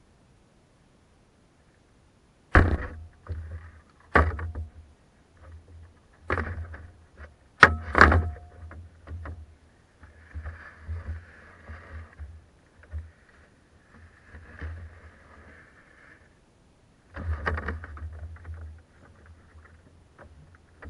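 Several sharp knocks on a canoe's hull, the first about two and a half seconds in, a close pair around eight seconds and another cluster near the end, with softer sloshing and handling noise between them.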